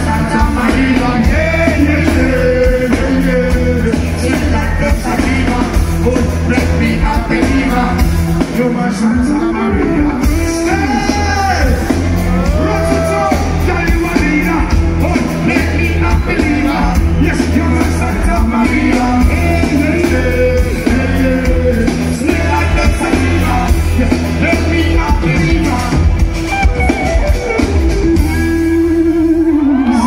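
Live dancehall song played loud over a concert PA: a steady heavy bass beat under sung vocals.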